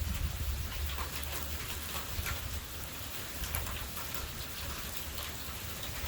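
Thunderstorm rain falling steadily: an even hiss with many single drops ticking on a surface, over a low rumble of wind.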